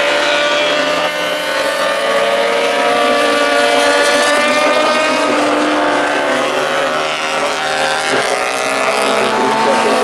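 A pack of classic superbike racing motorcycles at speed, several engine notes overlapping and slowly shifting in pitch as they go through the corners.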